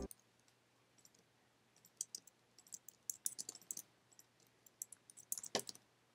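Faint, irregular clicks and taps from digital drawing tools at a computer, beginning about two seconds in, with one louder click near the end.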